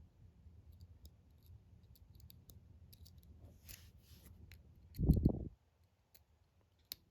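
Faint, irregular clicks and scrapes of a lock pick working a pin inside a brass Master Lock 140 padlock. A loud, dull thump comes about five seconds in, followed by one more sharp click near the end.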